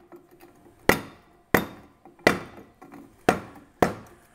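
A hammer tapping the outlet end cap of a motorcycle exhaust silencer down into its sleeve to seat it: five sharp knocks, half a second to a second apart, each ringing briefly.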